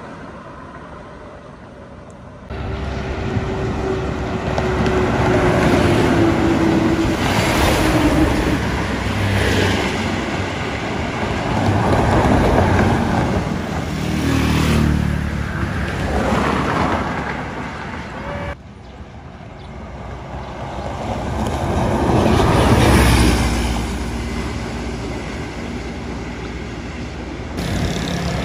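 Highway traffic with buses passing close by, each pass swelling and fading; early on, one engine note drops in pitch as a vehicle goes past.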